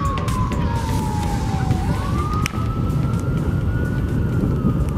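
Emergency vehicle siren wailing over a steady low rumble. The single tone falls slowly, sweeps back up about two seconds in, and starts falling again near the end.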